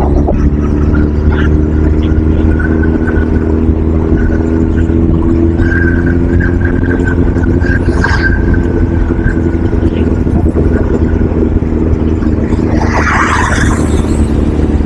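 A motor vehicle's engine running at a steady speed, a steady low hum with no change in pitch, and a short higher noise near the end.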